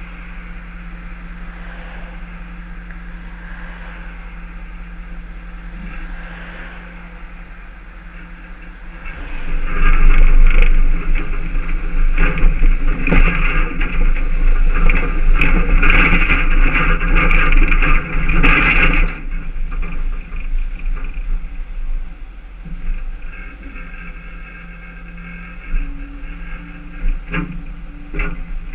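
Tow truck driving, its engine and road noise heard from the back of the truck. The noise jumps much louder about ten seconds in, stays loud for about ten seconds, then drops back to a steadier running sound.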